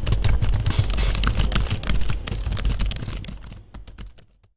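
Fast typing on a computer keyboard: a dense run of key clicks that fades out near the end.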